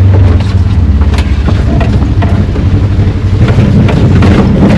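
Small farm vehicle's engine running as it is driven over slippery, rough ground, with scattered knocks and rattles throughout.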